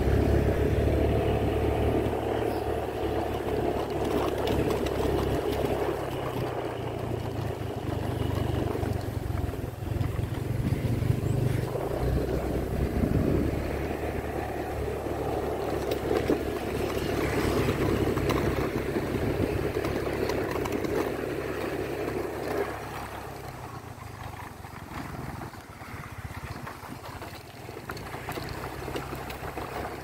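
Motorbike engine running as it is ridden along, getting noticeably quieter for the last several seconds.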